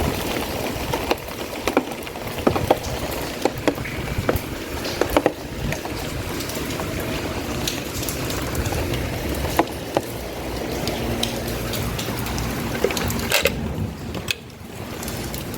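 Heavy rain falling in strong wind, a steady rushing hiss with frequent sharp taps of drops hitting close to the microphone. The sound dips briefly near the end.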